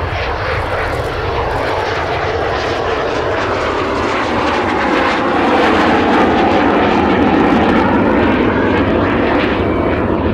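Kawasaki T-4 jet trainer climbing away just after take-off: steady rushing jet engine noise that grows a little louder about halfway through.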